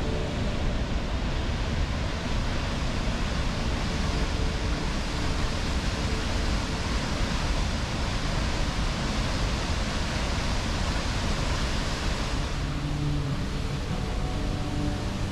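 Steady rushing of a large waterfall, the Falls of Kirkaig, with water pouring down into a rocky gorge. Its tone shifts a little about twelve seconds in.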